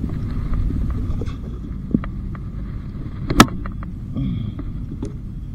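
Steady low wind rumble on the microphone, with scattered light clicks and one sharp knock about three and a half seconds in, as a gaff is swung at a hooked bluefish thrashing at the surface.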